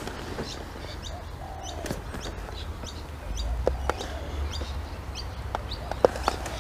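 Birds calling outdoors: short high chirps repeat throughout, with a low curved call about one and a half seconds in. A few sharp clicks of tackle being handled are mixed in, the loudest about six seconds in.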